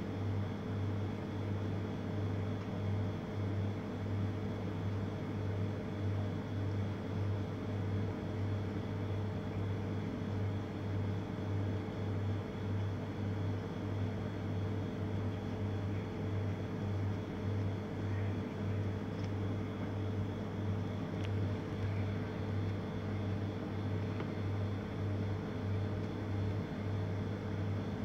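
Steady low machine hum, pulsing slowly and evenly, with a few fainter steady tones above it, typical of kitchen equipment or ventilation. A few faint clicks sound in the second half.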